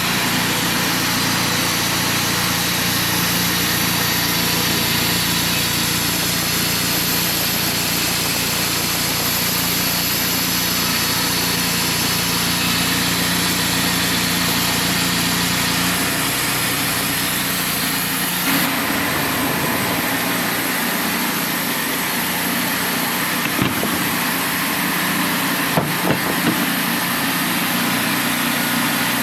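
Wood-Mizer portable band sawmill's engine running steadily. Its sound changes and drops away in the low end about two-thirds of the way through, and a few sharp knocks follow near the end.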